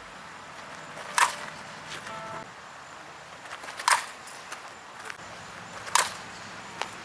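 Metal fastpitch softball bat striking tossed softballs: three sharp pings, about two seconds apart.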